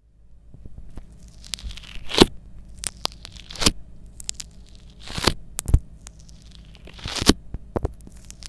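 Slime being squished and stretched by hand, with irregular sticky clicks, pops and crackles; the loudest pops come about two, five and seven seconds in.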